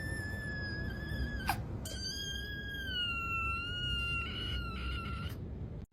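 A cat giving two long, drawn-out, high-pitched cries, the second sliding slightly lower, with a short click between them.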